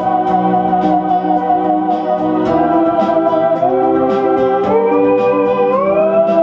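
Moog Etherwave Standard theremin playing a lead melody: a held, wavering note that drops lower partway through, then slides up in pitch twice. Underneath are sustained electronic chords and a steady beat from the backing track.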